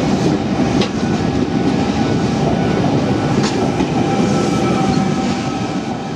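Sydney electric passenger train running on the track: a steady rumble with a faint constant whine, a sharp click about a second in and another about three and a half seconds in. The sound fades away near the end.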